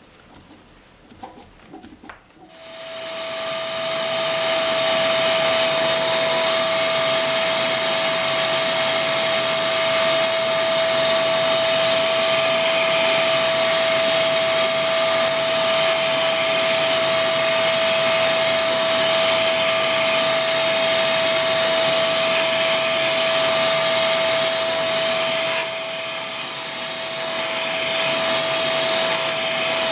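Homemade surface grinder's electric motor and wheel spinning up about two seconds in, then running steadily with a constant whine over a rushing air noise. The level dips briefly near the end and then recovers.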